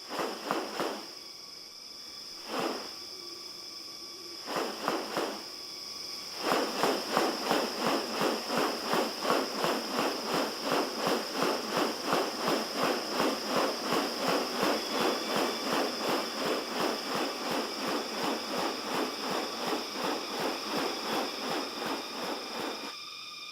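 Rainforest insects holding a steady high-pitched drone, with a few short animal calls at first. From about six seconds in, a call repeats quickly and evenly, about three times a second, until near the end.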